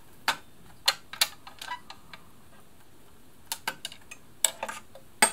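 Small sharp metallic clicks and taps at irregular intervals, about nine in all: a screwdriver and small steel parts knocking in the hook and bobbin area of a Singer 760 sewing machine as it is taken apart.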